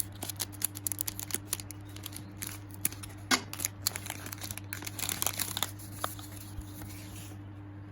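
Squishy packaging crinkling and rustling as it is handled and unwrapped: a dense, irregular run of small crackles, busiest in the middle, over a steady low hum.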